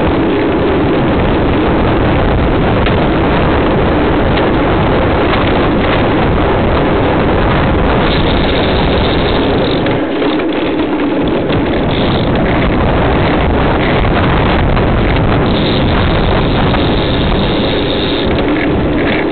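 Loud, steady wind rushing over the microphone of an action camera mounted on a moving road bike, mixed with road noise. The deep rumble eases for about a second around ten seconds in.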